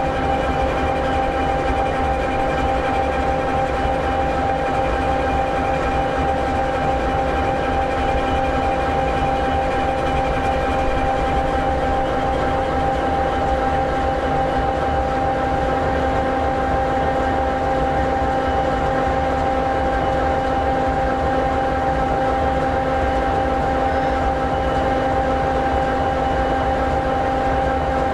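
An SD60E locomotive's EMD 16-710G3B sixteen-cylinder two-stroke diesel engine idling steadily: a low rumble with a steady whine over it.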